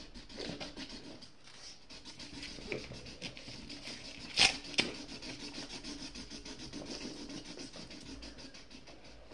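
A pen scribbling on paper in quick back-and-forth strokes while a drawing is being coloured in. Two sharp knocks come about four and a half seconds in.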